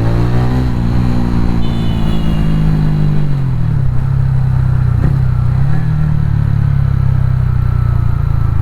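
TVS Ronin 225's single-cylinder engine running under way, its pitch rising briefly at the start, dropping about three seconds in, then holding steady.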